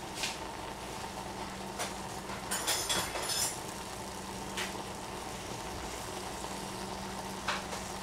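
Strawberry and blueberry fruit sauce simmering in a stainless steel saucepan over a gas flame: a steady bubbling sizzle with scattered pops, several close together near the middle.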